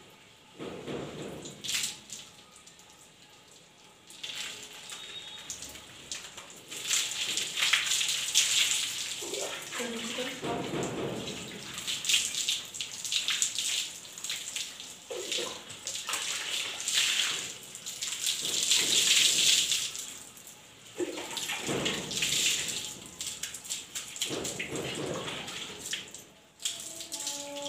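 Water poured from a plastic mug over long shampooed hair, splashing onto a concrete floor in repeated pours a second or two long, as the shampoo is rinsed out.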